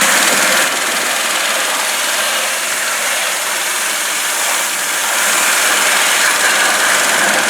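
Pressure washer spraying water onto the truck: a loud, steady hiss.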